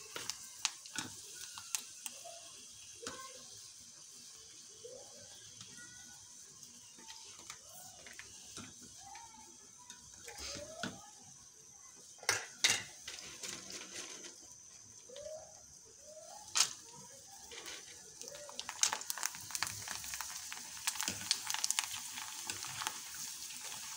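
Papad wafers frying in a pan of hot oil. There is faint hiss broken by a few sharp clicks, and then, about three-quarters of the way in, the wafers go into the oil and a steady sizzle and crackle sets in.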